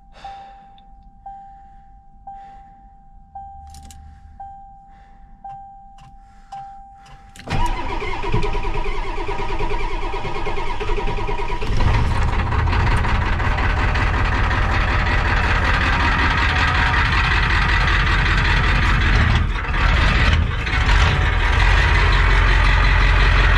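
A warning chime pings about once a second. Then the new starter cranks the Ford 7.3 IDI diesel V8 for a few seconds until it catches and settles into a steady idle. It is a cold start with no block heater after sitting over 24 hours, and it fires easily now that the worn starter has been replaced.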